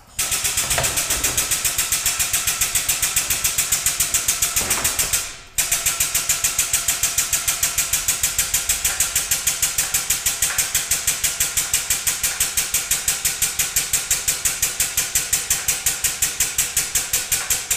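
Air-over-hydraulic pump on an engine hoist running with a fast, even pulsing and hiss as it raises the aircraft engine. It stops briefly about five and a half seconds in, then runs on.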